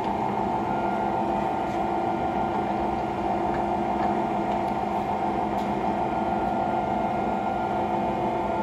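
Poreba heavy-duty gap bed lathe running, its 25 hp motor and headstock gearing giving a steady hum with several steady tones, while the carriage is being put into slow power feed.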